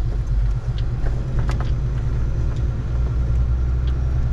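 Truck's diesel engine running, heard from inside the cab as a steady low drone, with a few faint clicks over it.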